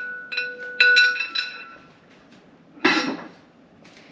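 Aluminium pressure canner lid clinking against metal as it is lifted off and set aside: a few sharp metallic clinks in the first second and a half, with a ringing tone that dies away, then one duller knock about three seconds in.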